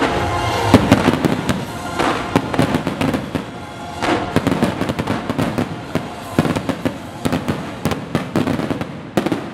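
Fireworks display: a rapid, irregular series of bangs and crackling from bursting shells, with music fading out in the first second.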